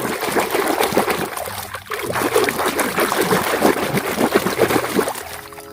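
Water splashing and trickling as a muddy plastic toy is scrubbed and rinsed by hand in a basin of water: a busy, irregular sloshing with many small splashes, easing off briefly about two seconds in and fading near the end.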